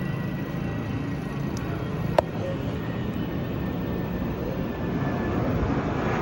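Rumble of an Airbus A319-132's twin IAE V2500 turbofans as the airliner flies overhead, growing louder toward the end. A single sharp click comes about two seconds in.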